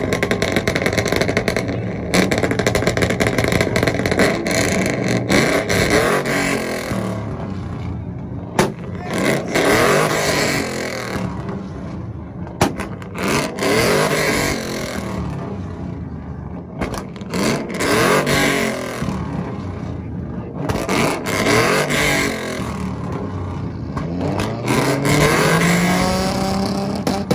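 Chevrolet Silverado pickup's engine revving hard against a two-step rev limiter, the revs rising and falling again and again with sharp pops and bangs, and a long climb in revs near the end.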